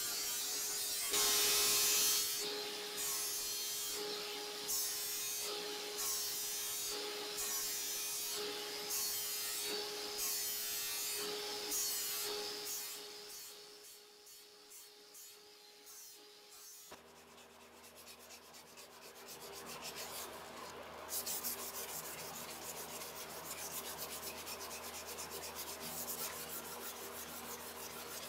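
Sandpaper rubbed back and forth by hand over beech wood, in strokes roughly once a second, over a steady machine hum. The rubbing goes quieter around the middle and resumes as finer, continuous scratching.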